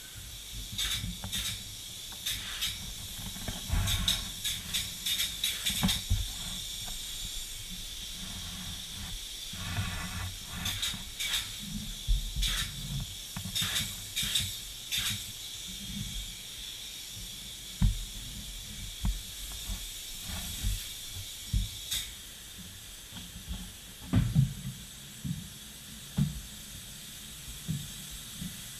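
Spray foam gun hissing in repeated short spurts as open-cell foam insulation is sprayed, over a steady high hiss. Occasional dull knocks and bumps come in between.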